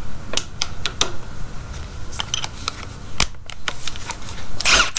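Irregular clicks and knocks of spade bits' hex shanks being pushed into the quick-release chucks of a Skil and a Milwaukee cordless impact driver, with gloved handling of the tools. A short rasping sound comes just before the end.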